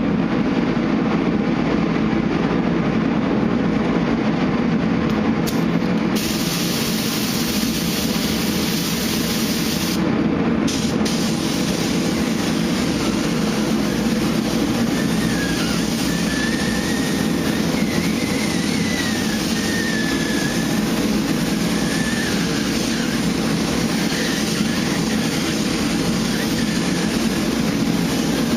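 A steady low machine rumble, with a paint spray gun's air hiss starting about six seconds in, cutting out briefly around ten seconds and then running on as base coat is sprayed.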